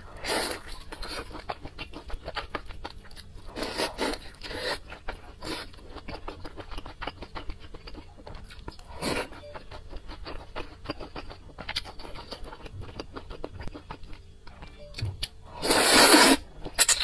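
Close-miked mouth sounds of eating luosifen rice noodles: wet chewing with crunchy bites of a fried topping, and a loud slurp of noodles near the end.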